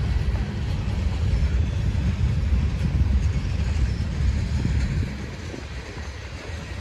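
Slow-moving freight train rolling past: a heavy, low rumble of the cars on the rails that eases off about five seconds in.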